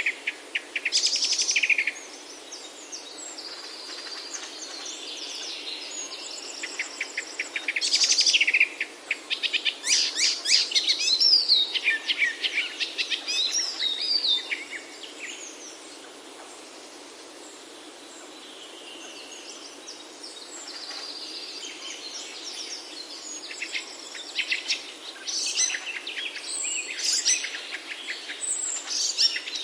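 Songbirds singing and chirping, with fast rattling trills and short whistled phrases. The song comes in bunches, busiest about a third of the way in and near the end and sparser in the middle, over a soft steady hiss.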